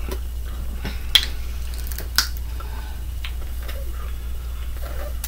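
Small clicks and soft squishy sounds of hands pulling apart and peeling boiled shellfish, with two sharper clicks about a second and two seconds in, over a steady low hum.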